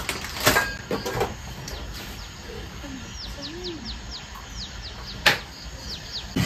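Small birds chirping in a quick series of short, high, falling notes, with a few sharp clicks or knocks, the loudest about five seconds in.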